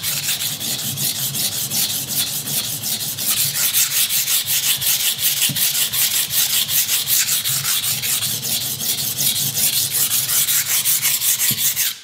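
Steel kitchen knife blade rubbed back and forth on a wet, cheap 320-grit waterstone: a steady run of quick gritty scraping strokes, several a second, that stops abruptly at the very end. The strokes are raising a burr along the edge of soft steel on a soft, slow-cutting abrasive.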